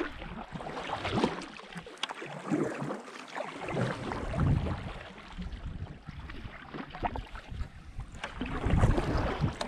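Kayak paddle strokes dipping into calm water and splashing, with water swishing past the hull.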